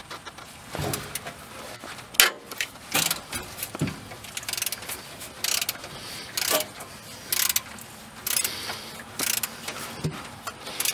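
Socket ratchet clicking in short, irregular runs as the alternator's mounting bolt is loosened to slacken the drive belts.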